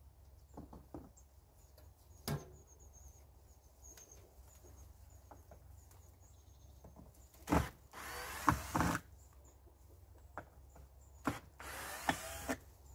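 Russian vine being pulled away by hand: leafy stems rustling and tearing in two louder stretches, one over a second long and a shorter one near the end, with scattered snaps and clicks of stems breaking.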